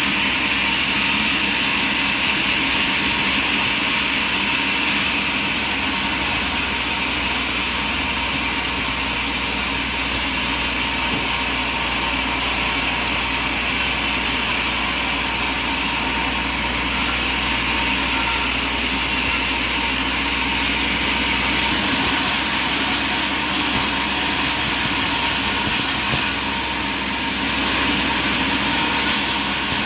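Sawmill engine running steadily at a constant level, with a brief dip in loudness a few seconds before the end.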